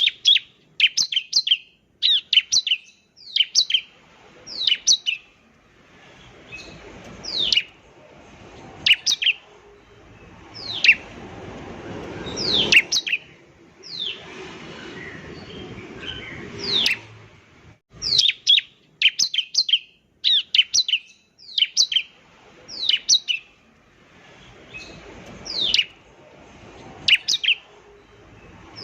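Ciblek (bar-winged prinia) singing: sharp, high notes that fall steeply in pitch, given in quick clusters of two to four with short pauses between. This is the lively, full song that keepers call 'gacor'.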